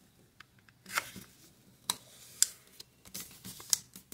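A sheet of 15 cm kami origami paper being folded corner to corner and creased flat by hand: a handful of short, crisp paper crackles and rubs, with a cluster near the end.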